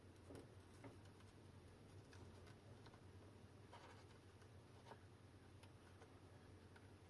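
Near silence: room tone with a steady low hum and a few faint, scattered clicks and taps.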